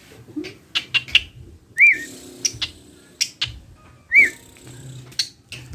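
Asian pied myna (jalak suren) calling: a run of short, sharp chirps and clicks with two loud rising-and-falling whistled notes, about two seconds apart.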